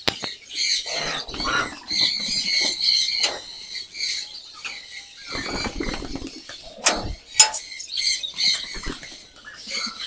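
Domestic pigeons' wings flapping as the flock is let out of its loft and takes off in flurries, with two sharp knocks about seven seconds in.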